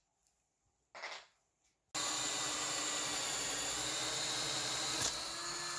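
A cordless drill starts suddenly about two seconds in and runs at a steady speed, with a steady whine. It is drilling into the edge of an exterior door.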